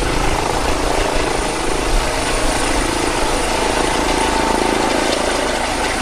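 Police Eurocopter EC135 helicopter hovering low overhead: steady rotor and turbine noise with a low rumble underneath.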